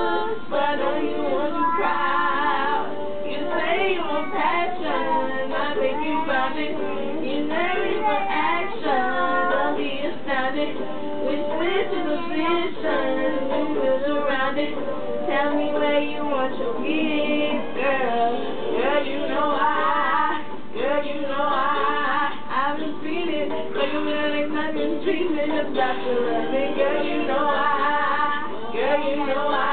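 A song playing, probably from the laptop, with a small child's voice singing along.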